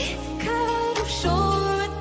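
Pop song with a female sung vocal over a steady bass line and drum beat.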